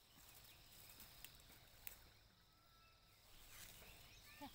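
Near silence, with faint rustling of pea vines as they are handled and two small snaps, typical of pea pods being picked by hand.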